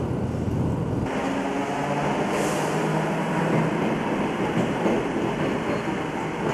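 Electric commuter train running on the line: a rumble of wheels on rail with a steady low motor hum. The sound changes abruptly about a second in.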